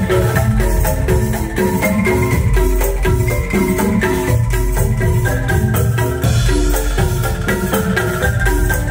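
Bamboo percussion ensemble playing a rhythmic tune: quick pitched bamboo notes over a repeating low bass line, with regular cymbal hits keeping the beat.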